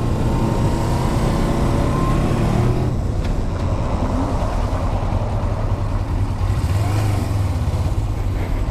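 Sport motorcycle engine pulling under acceleration, its pitch climbing for the first few seconds, then dropping at a gear change about three seconds in before building again, over steady wind rush.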